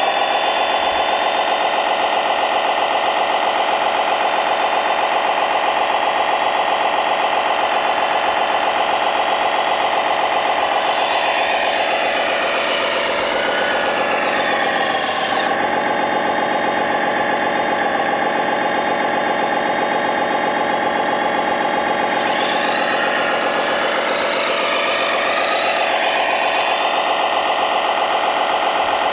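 Scale RC hydraulic machines running: a steady simulated diesel engine sound, with a high hydraulic pump whine that sweeps down in pitch and back up twice, about eleven and twenty-two seconds in, as the excavator's arm moves.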